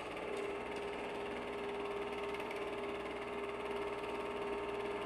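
A steady hum with a held mid-pitched tone that comes in just after the start and stays even throughout.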